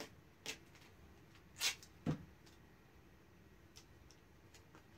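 Gorilla tape pulled and torn from the roll in a few short rips, with a light thump just after two seconds; then only faint handling ticks.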